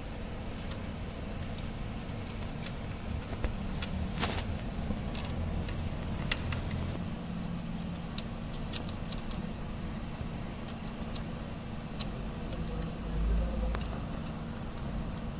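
Light metallic clicks and clinks of a mounting nut and bolt being fitted by hand to a car's starter motor, over a steady low hum. One sharper click comes about four seconds in, and a low thud near the end.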